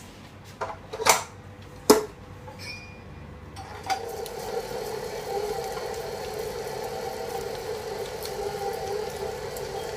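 A few sharp knocks, then about three and a half seconds in an electric stand mixer starts and runs steadily at medium speed, its flat paddle beating softened cream cheese in the bowl.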